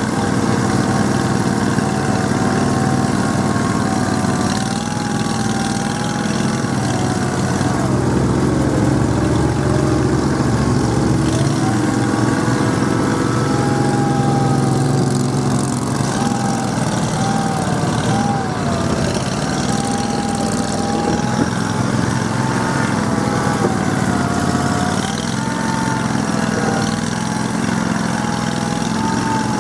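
Argo amphibious ATV engine running steadily, its whine rising and falling as the throttle changes.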